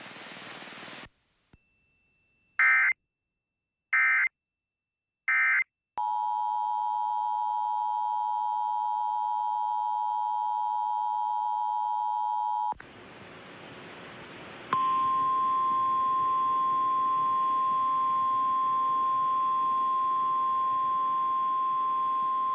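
Emergency Alert System signals. Three short data bursts, the end-of-message code, come first. About six seconds in, the two-tone EAS attention signal (about 853 and 960 Hz together) holds steady for about seven seconds. After a couple of seconds of radio static, a single steady NOAA Weather Radio warning alarm tone near 1050 Hz sounds for about nine seconds.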